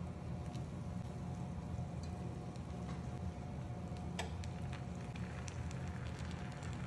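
Brown sugar and butter sizzling faintly in a cast iron skillet as peeled mandarin oranges are set into it, with scattered small crackles and one sharp click about four seconds in, over a steady low hum.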